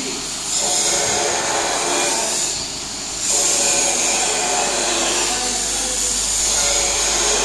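Vibratory feeder running at 30% controller level, grain hissing and rattling as it streams across the vibrating tray and pours into a sack, over a steady low hum. The flow grows louder about half a second in and again just after three seconds.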